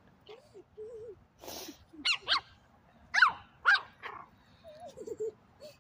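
Small puppy yapping: four short high-pitched barks in two quick pairs, with softer, lower whining grumbles before and after.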